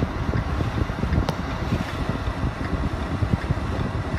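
Hurricane wind and driving rain, the gusts buffeting the microphone in a loud, uneven low rumble over a steady hiss.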